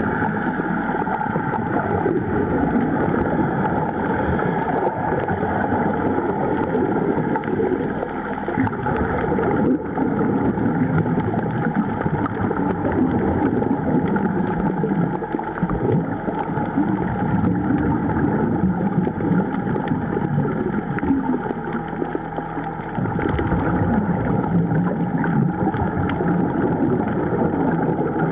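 Steady muffled underwater rushing noise picked up by a camera in a waterproof housing, with a brief dip in level a little before the end.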